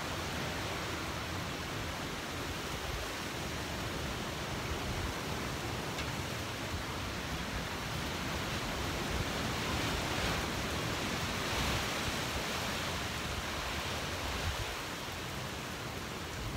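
Thunderstorm wind and heavy rain: a steady rushing that swells into a stronger gust about ten seconds in and eases near the end, a gust measured at 48 miles per hour.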